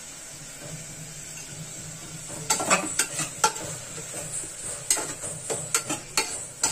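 A metal spoon stirring and scraping a frying onion-tomato masala in an aluminium pressure cooker, a faint steady sizzle at first, then from about two seconds in repeated clinks and scrapes of the spoon against the pot.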